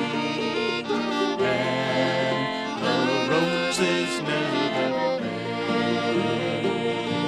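Acoustic bluegrass band playing an instrumental passage, with sustained melody notes over the rhythm.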